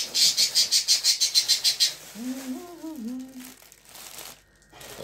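A thin plastic bag crinkling in quick rustles, about eight a second for roughly two seconds, as bread is wrapped in it. About two seconds in, a short wavering hummed "mm" follows.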